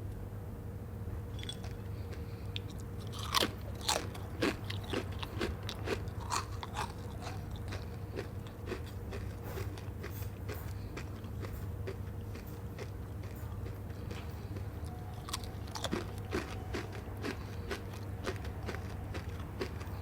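A person biting into and chewing a crunchy snack, with crisp crunches in two spells: a few seconds in and again near the end.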